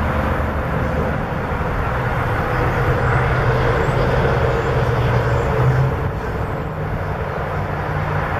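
Steady drone of distant interstate highway traffic, with a low engine hum running through it.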